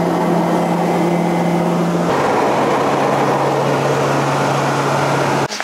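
Turboprop airliner's engine and propeller drone heard inside the cabin, a loud steady hum with a strong low tone during the climb off the runway. About two seconds in, the drone drops to a lower steady pitch, the plane now cruising.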